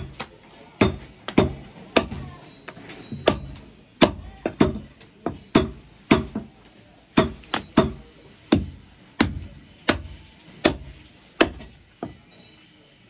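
Meat cleaver chopping goat meat on a wooden chopping block: a steady run of sharp chops, about two a second, stopping near the end.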